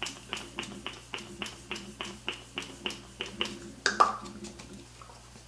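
Pump bottle of setting spray misted onto the face in a quick run of about a dozen short sprays, nearly four a second, stopping about three and a half seconds in. One sharper click follows about half a second later.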